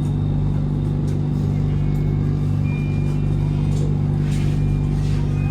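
BTS Skytrain car running, a steady low hum of several tones, with a few faint, brief high tones in the second half.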